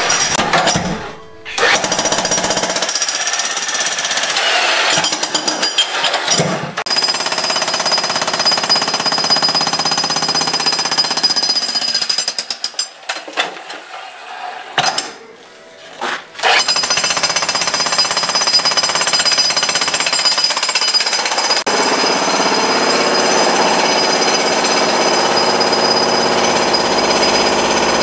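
Jackhammer breaking up a concrete slab floor, hammering steadily with a short stop about a second in and a longer break in the middle.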